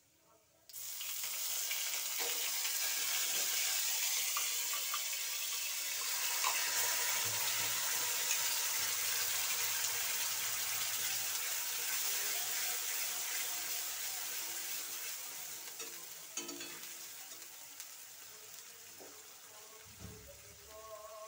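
Wet ground tomato spice paste tipped into hot oil in a kadai, sizzling loudly at once and then hissing steadily, dying down gradually over the last few seconds. A few light knocks of a spatula against the pan come near the end.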